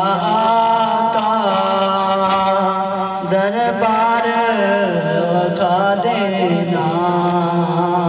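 A solo male voice chanting melodically into a microphone. It holds long notes that waver and bend in ornamented turns, in the style of a religious recitation.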